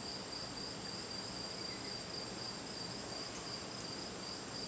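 Insects chirring steadily in the background, a continuous high-pitched tone over faint room noise.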